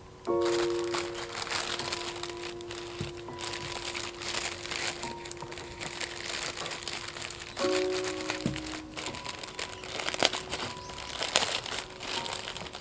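Plastic liner sheet inside a wicker basket crinkling and crackling as gloved hands press and handle it. Background music with long held notes plays throughout.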